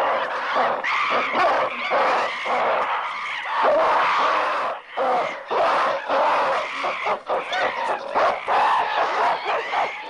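A troop of apes screeching and hooting, many calls overlapping, with brief lulls about five and seven seconds in.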